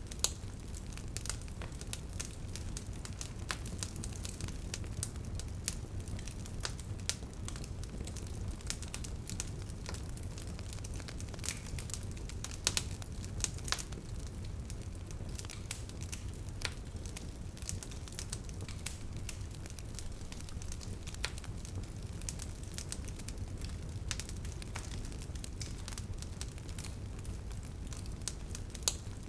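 Wood fire burning: irregular crackles and pops, a few louder than the rest, over a steady low rumble of the flames.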